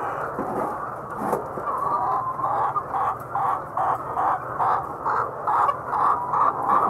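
Chickens clucking. From about two seconds in, a run of short, evenly spaced clucks comes about three a second and grows a little louder, over a steady background of flock calls.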